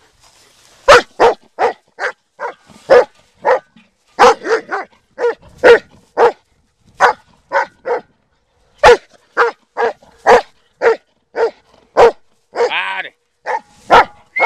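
Black German Shepherd barking over and over in quick succession, about two or three barks a second, with a brief pause about four seconds in and one longer, drawn-out bark near the end.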